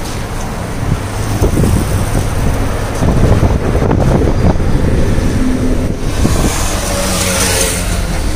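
Wind buffeting the microphone as a steady low rumble, over road traffic noise, with a louder rushing sound about seven seconds in.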